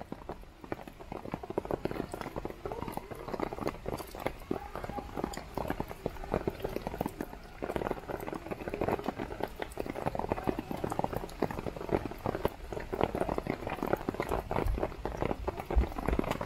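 Heavy rain pattering steadily on a Panda VC cotton-blend tarp, a dense unbroken run of drop hits, with a few dull low knocks near the end.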